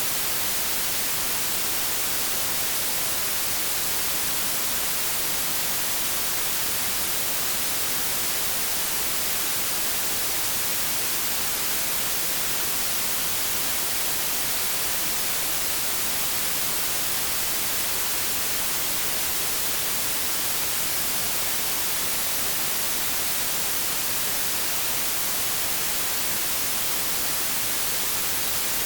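Steady white noise: an even, unchanging hiss, brightest in the high end, with no tones or separate events.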